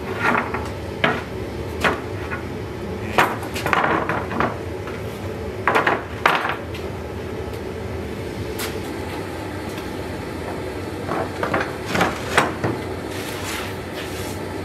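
Gas forge burner running steadily underneath, with a series of sharp knocks and clatters of steel against wooden boards as a hot sword blade is laid and pressed between them during heat treatment. The knocks bunch up in the first several seconds and again a couple of seconds before the end.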